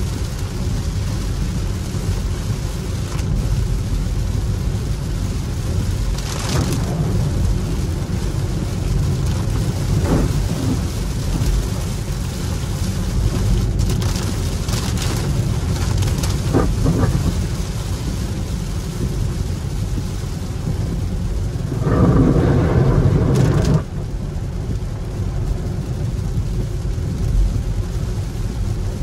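Inside the cabin of a Hyundai Ioniq 5 electric car driving on a wet road in rain: a steady low tyre-and-road rumble with the hiss of water and rain, and no engine note. About three-quarters of the way through, a louder rush lasts about two seconds and stops abruptly.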